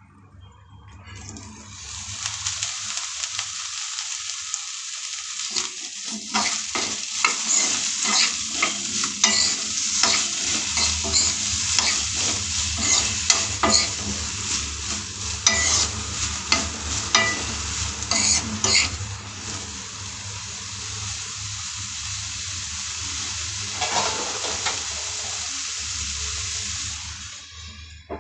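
Cauliflower florets frying in hot oil in a kadai, sizzling steadily, with a stirring utensil knocking and scraping against the pan from about five seconds in until about nineteen seconds. Near the end the sizzle drops away as a lid goes on the pan.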